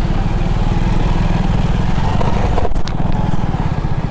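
Motorcycle engine running steadily while riding along, with a short click a little before three seconds in.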